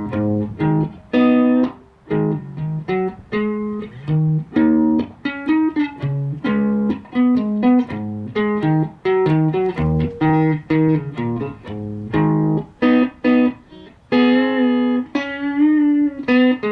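Electric Telecaster with microcoil pickups played through a Richter 5E3 tube amp with 6K6 pentode output tubes: a fast run of short picked single notes and chords, with a few longer held notes bent or shaken with vibrato near the end.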